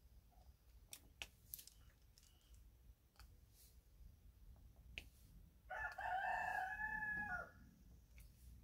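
A rooster crows once in the background, a single call under two seconds long about two-thirds of the way in. Before it come a few faint clicks of a drill pen placing diamond-painting drills on the canvas.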